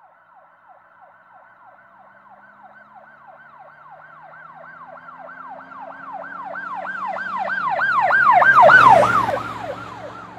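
Emergency vehicle siren in a fast yelp, its pitch sweeping up and down about three times a second, passing by: it grows louder to a peak about nine seconds in, with a rush of vehicle noise as it goes past, then fades.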